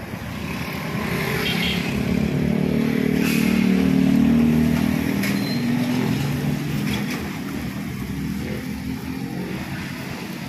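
A motor vehicle's engine on the street passes close by, swelling to its loudest about four seconds in and then fading, over steady traffic noise.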